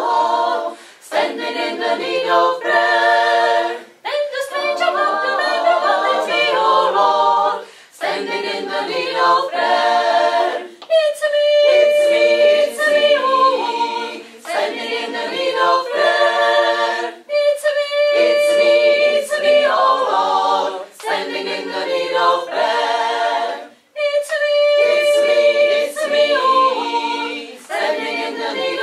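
A choir singing a cappella, in short phrases of a few seconds with brief breaks between them.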